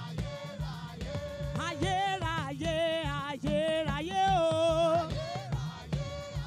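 Choir and lead singer performing a Yoruba gospel praise song over a steady drum beat. From about two seconds in to five, a voice holds long, wavering notes, the loudest part.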